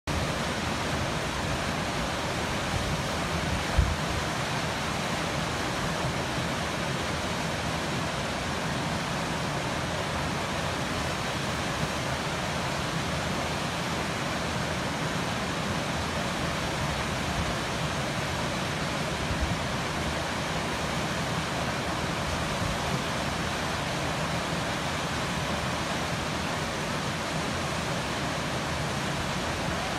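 Waterfall pouring steadily, an even rushing water noise with no change in level, broken by a brief low thump about four seconds in.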